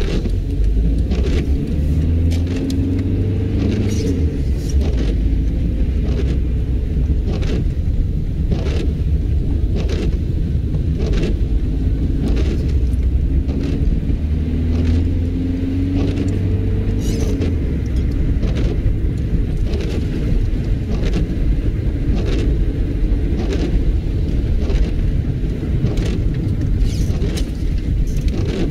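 Car interior while driving in the rain: steady engine and road rumble, its note rising a few times, with the windscreen wipers sweeping back and forth in a sharp, regular stroke about once a second.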